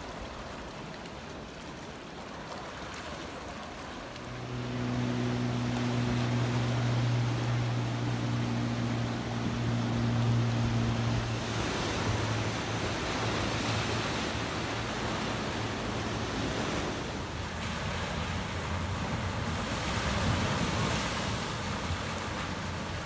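A small motorboat's engine hums steadily with a low, even pitch, then fades away. After that, surf breaks and washes over coastal rocks in rising and falling rushes.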